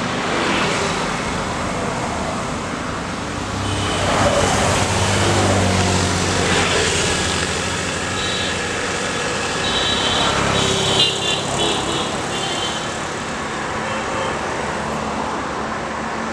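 Road traffic passing: motorcycles, scooters and cars going by with steady engine and tyre noise, swelling as a group of motorbikes passes about four seconds in. Short high beeps repeat briefly around ten seconds in.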